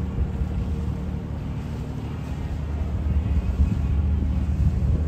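Steady low rumble of a boat engine running, with wind noise on the microphone.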